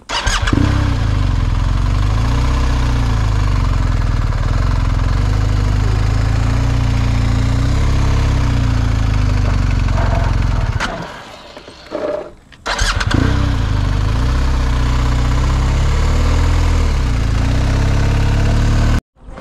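BMW R 1250 GS boxer-twin motorcycle engine starting and running, its pitch rising and falling gently with the throttle. About eleven seconds in it drops away briefly, comes back, and then cuts off sharply near the end.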